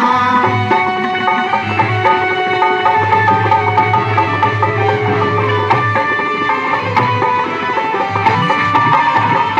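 Live devotional folk music (bhajan/ragini) playing an instrumental passage: a melody instrument holding and moving between steady notes over a hand-drum rhythm, with no singing.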